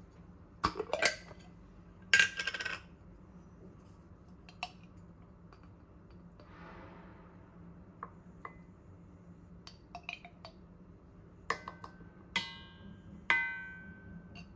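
Metal lid twisted off a glass jar of chili bean paste, two short scraping bursts about a second and two seconds in. Then a metal spoon scrapes paste and clinks against a stainless steel bowl and the glass jar, the last few strikes ringing on.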